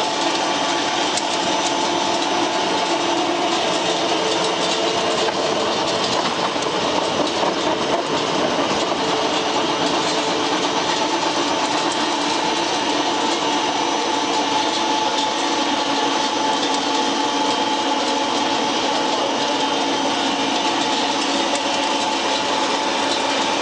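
YMKJ350 flat die wood pellet mill running steadily under load, a continuous mechanical rattle and rumble with a steady whine, as raw material is fed in and pellets come out of the discharge chute.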